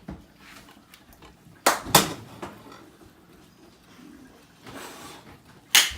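Three sharp knocks: two close together about two seconds in and one near the end, with a short rustle just before the last.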